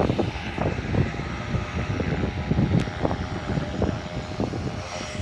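Gaui X3 electric RC helicopter in flight: a steady rotor hum and motor whine, with irregular gusts of wind buffeting the microphone that ease off toward the end.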